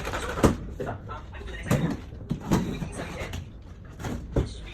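About four sharp knocks or bangs at uneven intervals, over a low steady hum.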